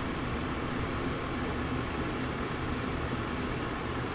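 Steady background hum and hiss, with no distinct events.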